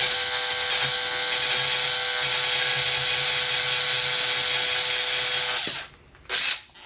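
Electric drill running steadily at full speed, boring a hole through a switch-holder part, then stopping abruptly about six seconds in. A short burst of noise follows just after.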